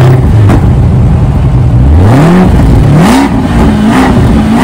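2022 Corvette Stingray's 6.2-litre LT2 V8 catching on start-up, loud from the exhaust. It settles into a low idle, is revved twice about two and three seconds in, then holds a higher, slightly wavering idle.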